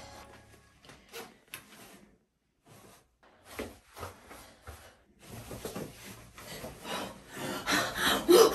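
Hands rubbing and brushing over denim jeans and clothing, faint and scattered at first and then growing louder and more continuous over the last few seconds.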